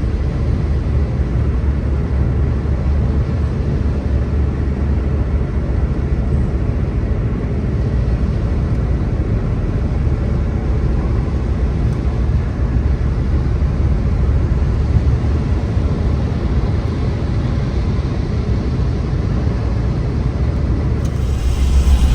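Car driving at motorway speed on a wet road: a steady low road rumble under an even tyre hiss. About a second before the end the hiss swells louder.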